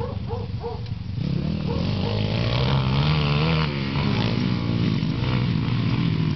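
Pit bike engine revving up and down as the bike rides past, loudest and wavering most in pitch around the middle.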